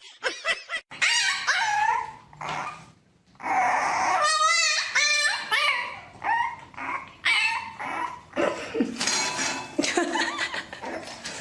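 A dog giving a string of high, wavering whines and yips, with a brief pause about three seconds in.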